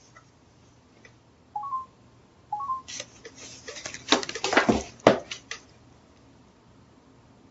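Two short two-note electronic beeps, each stepping up in pitch, about a second apart, typical of a camcorder's button or mode-change tones. They are followed by a rapid, irregular run of clicks and knocks lasting about two and a half seconds.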